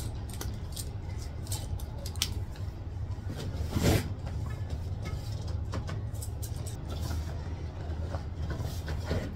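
Scattered light clicks and knocks from platform mule heels being walked in, with one louder thump about four seconds in, over a steady low hum.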